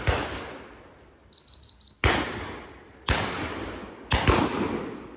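Shotguns firing at driven ducks: single shots about two and three seconds in, then two in quick succession just after four seconds, each shot ringing out in a long fading echo.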